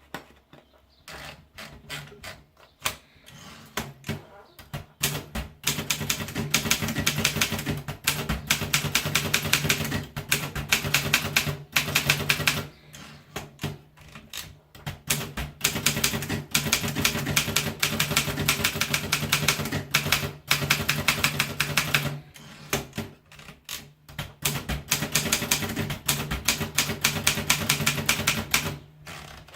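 Referent typewriter being typed on in fast runs of keystrokes, broken by a few short pauses, over a steady low hum.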